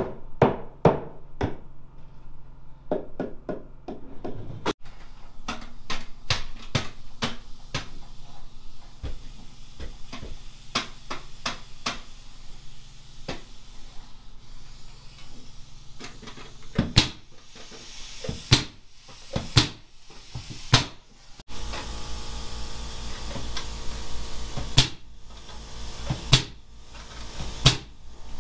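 Hammer driving nails into wood, heard in several short cuts: quick runs of light taps, then heavier single blows about a second apart.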